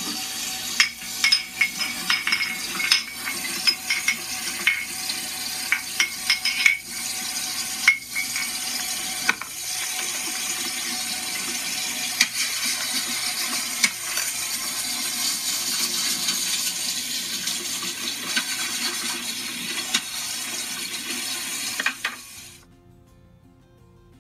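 Water running steadily while small plastic toy dishes and a toy pan clink and clatter in the sink, most often in the first ten seconds. The water cuts off abruptly a couple of seconds before the end.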